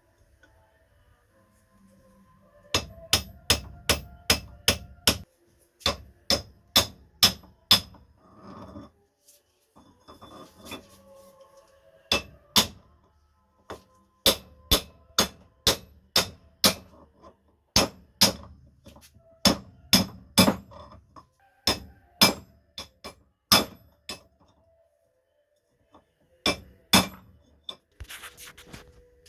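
Hammer blows on a steel pipe used as a drift, driving a new centre bearing onto a Holden Commodore tailshaft. The blows are sharp and ring metallically, coming in runs of about two to three a second with short pauses between the runs.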